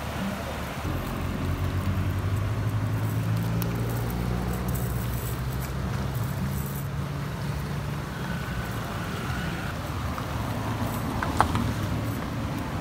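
A motor engine running in the background with a steady low hum that grows louder about a second in and eases off later on. A single sharp click comes near the end.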